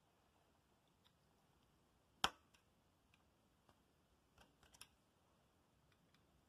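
Metal clicks of a snap ring being fitted: one sharp click a little over two seconds in, then a few faint light clicks near the middle.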